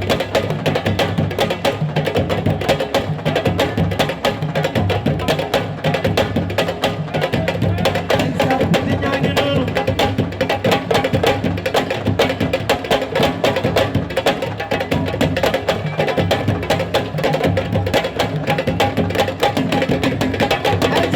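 Music driven by fast, dense drumming, with quick sharp strokes that run on without a break.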